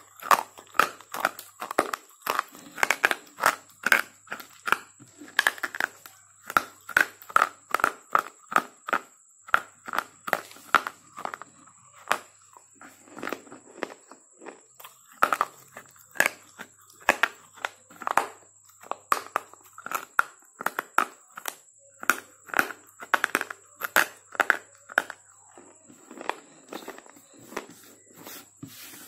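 Slate pencil being bitten and chewed close to the microphone: a steady run of sharp, brittle crunches, about one or two a second.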